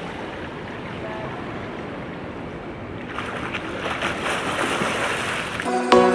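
Pool water sloshing and lapping, then from about three seconds in, splashing as a swimmer strokes through the water. Music comes in near the end.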